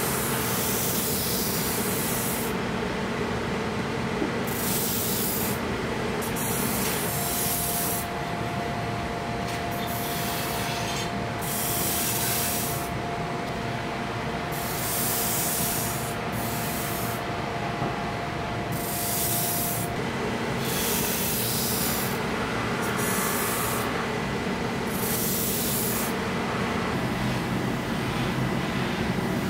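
Steel kitchen-knife blades being sharpened against a spinning abrasive grinding wheel. Repeated hissing strokes come roughly every two to three seconds over the steady hum of the grinder's motor.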